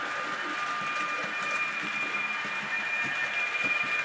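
H0 model of an ÖBB Rh 1116 electric locomotive running on the layout: a steady motor whine with a thin high tone, plus light clicks of wheels over the track, growing a little louder as it approaches.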